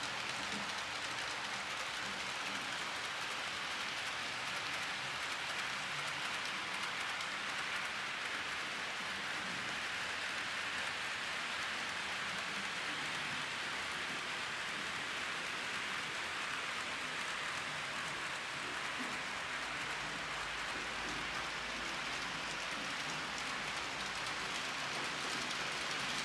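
Model railway freight train of silo wagons behind two model BLS Re 4/4 locomotives running along the track: a steady rushing noise of wheels on rails and running motors.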